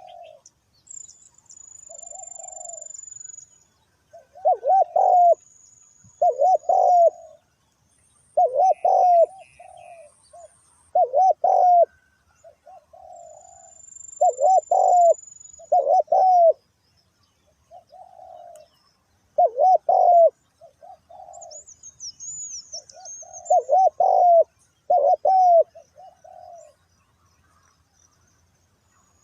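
Spotted doves cooing, phrase after phrase every second or two: loud coos alternate with fainter, more distant ones, as if two birds are answering each other. Thin high whistles sound above them now and then.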